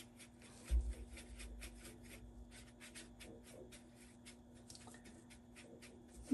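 Paintbrush mixing paint on a plate palette: a run of soft, scratchy brush strokes, a few a second, with a dull thump about a second in.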